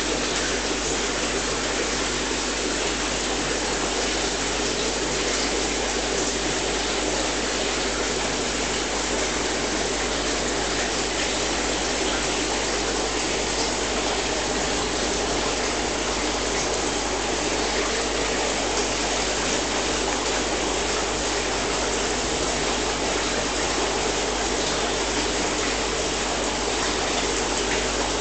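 Aquarium water circulation: a steady rush of moving water with a low hum underneath, unchanging throughout.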